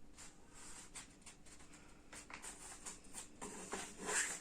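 Sheet of coloured paper being folded and creased by hand: faint rustling and rubbing with small crackles, a little louder about three and a half seconds in.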